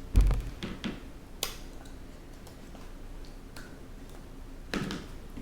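A low thump, then a handful of sharp clicks and taps, and a short rustling burst near the end.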